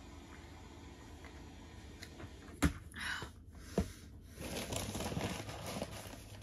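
Two sharp knocks about a second apart, then fast-food packaging rustling and crinkling as it is handled at the table.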